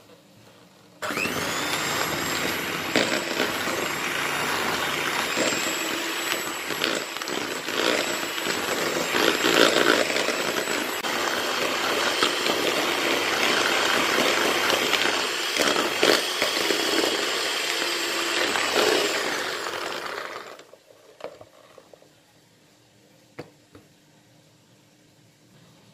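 Electric hand mixer switched on about a second in, its motor whining up to speed, then running steadily with twin wire beaters whisking powdered sugar into buttercream in a plastic bowl. It winds down and stops near the end, leaving a few light knocks.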